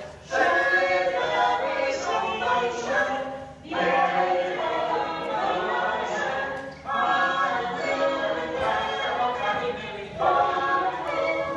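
A group of voices singing together unaccompanied, in four phrases of about three seconds each with short breaks between them.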